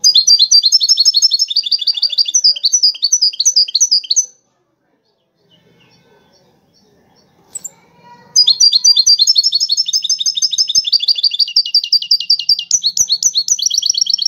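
Caged European goldfinch singing in two long runs of rapid, repeated high notes. The first run stops after about four seconds, and a single short note sounds in the pause before the second run starts about eight seconds in.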